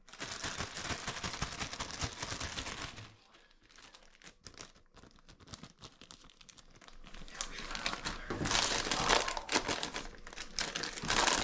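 Packaging being crumpled and handled, crinkling for the first few seconds. Then comes a quieter stretch of small clicks and rustles, and from about eight seconds in, louder crinkling again.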